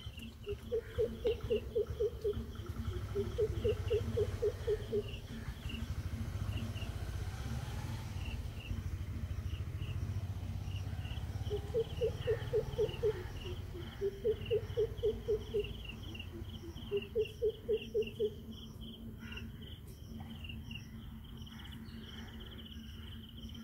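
Insects chirping steadily, with a low call of fast pulsed notes in short bursts of about a second, five times, over a low rumble.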